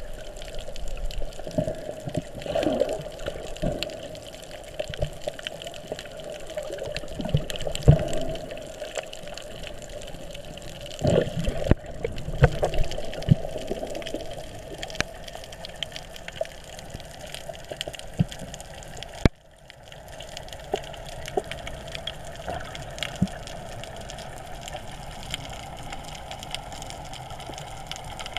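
Muffled underwater water noise picked up through an underwater camera's housing: a steady rushing hiss with scattered clicks and knocks. The sound breaks off and changes abruptly about 12 seconds in and again about 19 seconds in.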